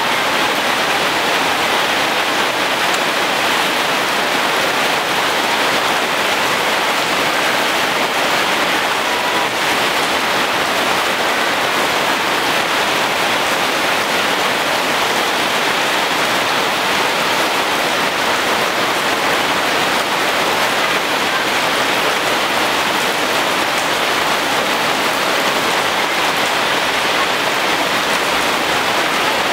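Steady rain falling on trees and leafy garden plants: a constant, even hiss that neither builds nor stops.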